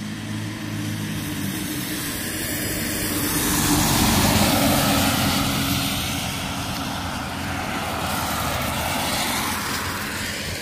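Road traffic passing by: a steady low engine hum, with a vehicle swelling to its loudest about four seconds in and fading away, and another smaller swell near the end.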